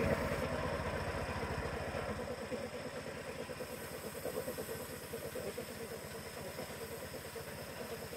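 A motor running steadily with a fast, even pulse, a little louder for the first two seconds.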